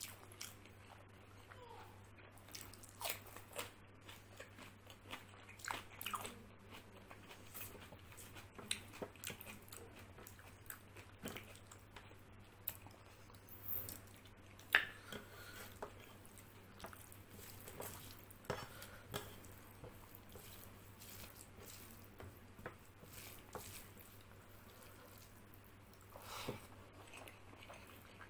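Close-up eating sounds: mouthfuls of rice and curry chewed, with irregular crunchy bites of raw green chili. The single loudest crunch comes about 15 seconds in.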